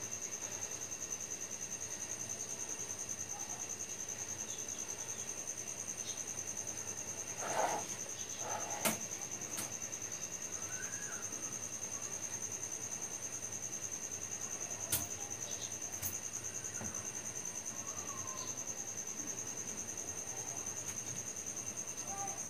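A cricket trilling steadily in fast, even pulses. There are a few soft scrapes and clicks of a spatula spreading cream on a cake plate, the clearest about eight seconds in.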